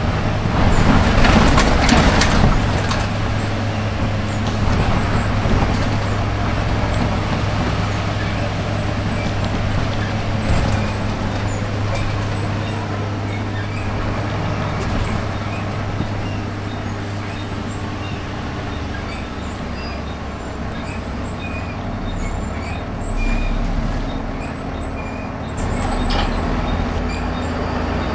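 Volvo B7RLE single-deck bus heard from inside the saloon: the rear diesel engine runs with a steady low drone under road noise as the bus travels and slows for a stop. It is louder and noisier for the first couple of seconds, and there is a short burst of noise about two seconds before the end.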